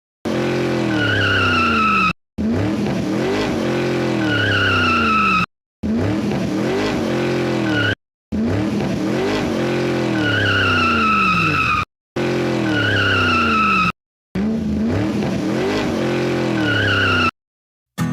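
Car sound effect repeated in six short clips, each cut off sharply by a brief silence: an engine revving up and down with a high tyre squeal.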